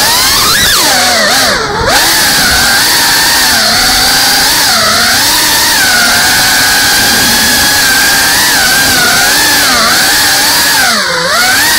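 FPV quadcopter's motors and propellers whining loudly, heard close up from on board. The pitch swings up and down with the throttle, and it drops briefly twice, about two seconds in and near the end, as the throttle is cut.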